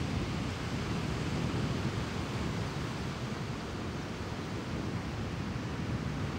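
Steady rush of ocean surf and wind at the shore, with wind rumbling on the microphone.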